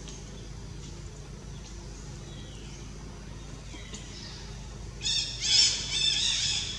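Baby macaque screaming: quiet for the first five seconds, then a short high-pitched call followed by a longer, louder run of harsh cries near the end.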